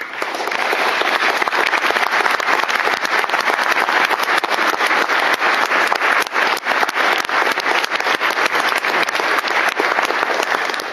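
Congregation applauding, a dense, steady clapping of many hands that dies away near the end.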